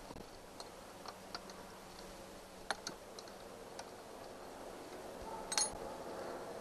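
Scattered light clicks and ticks of a hand tool on the lower-unit bolts of a Yamaha 6 hp four-stroke outboard, with one louder knock about five and a half seconds in.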